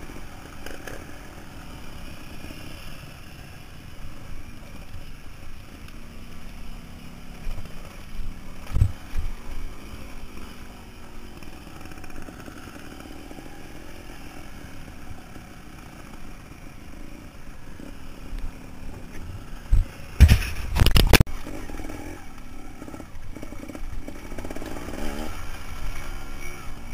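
Trials motorcycle engine running at low speed over rough ground, its revs rising and falling as the rider works the throttle. Sharp knocks about nine seconds in and a burst of loud thumps around twenty seconds in, from the bike jolting over rocks.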